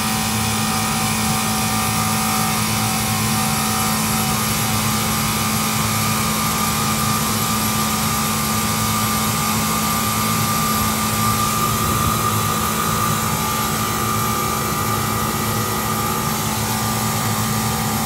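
Reach-in freezer's condensing unit running, its hermetic compressor giving a steady hum with a fainter high whine. The compressor runs but is not pumping the suction down with the liquid line closed, which the technician takes for a bad compressor that keeps tripping on overload.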